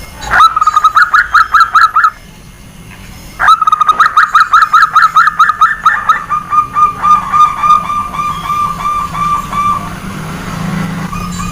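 Zebra dove (perkutut) cooing in rapid trains of short notes, about six a second, at a steady pitch. There are three bouts: a short one at the start, a long one from about three seconds in, and a brief one near the end, with a faint low hum underneath.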